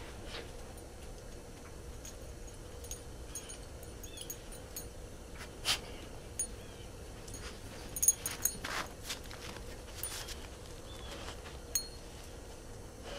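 A black Labrador moving through snow: scattered light clicks and jingles, more of them in the second half, over a faint steady hum.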